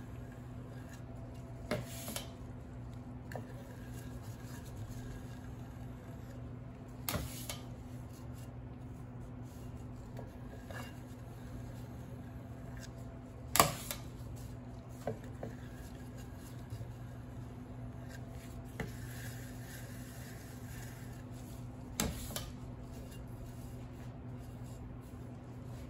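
Cake decorating tools clinking and knocking against dishes now and then, four louder knocks with the sharpest about halfway through, over a steady low hum.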